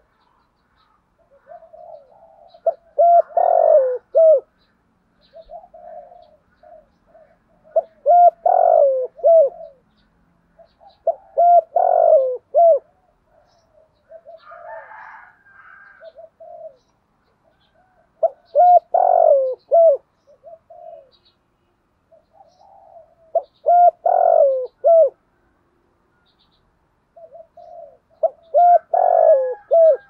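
Spotted dove cooing: six loud phrases, each introduced by a few softer notes and repeated every four to five seconds, in the voice type that Vietnamese dove keepers call 'giọng thổ'.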